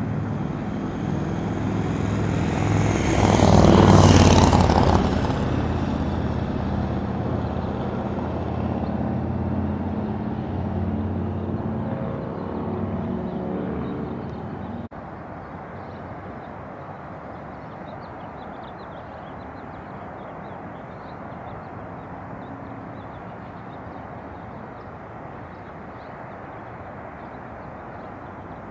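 A motor vehicle passing, its engine loudest about four seconds in and then fading. About fifteen seconds in the sound cuts off sharply to a quieter, steady outdoor background.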